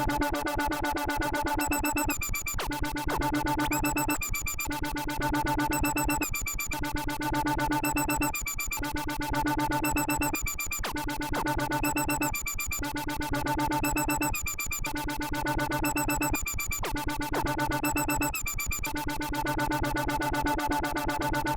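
Behringer Neutron analog synthesizer playing a droning, rapidly pulsing experimental noise pattern. It loops about every two seconds, each cycle bringing a run of high warbling tones followed by a brief drop-out.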